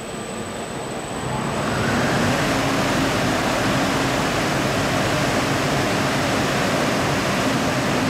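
SKP PR 5000 VG industrial marquee washing machine running: a loud, steady rushing noise with a faint low hum underneath, swelling up about a second in and then holding even.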